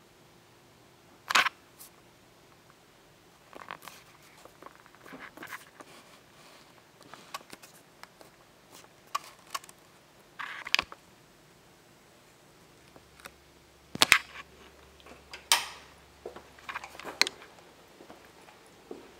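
Handling noise from a handheld camera: scattered, irregular clicks and knocks with no rhythm, the sharpest a little over a second in and several more in the second half.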